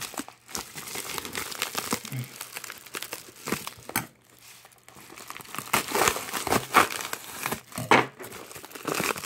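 Plastic bubble-lined mailer crinkling and rustling as hands peel it open around a shrink-wrapped DVD case. The crackling is irregular, with a short lull about four seconds in and louder crinkles after.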